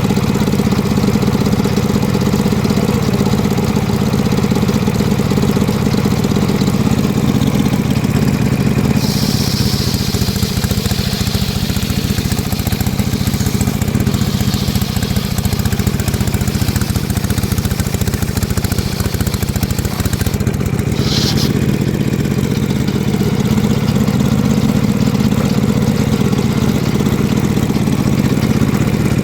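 Engine of a homemade circular-saw sawmill rig running steadily. A higher hiss comes and goes from about a third of the way in, with a short sharp high-pitched sound about two-thirds through.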